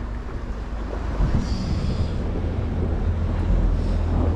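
A boat engine running with a steady low hum that grows stronger about three seconds in, with wind blowing across the microphone.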